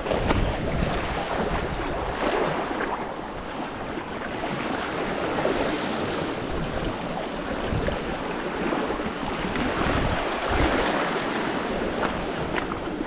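Surf washing and splashing over jetty rocks, with wind rushing on the microphone. A few sharp clicks near the end.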